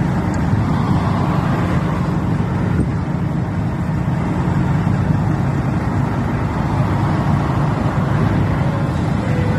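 Steady low engine rumble with no pauses or changes.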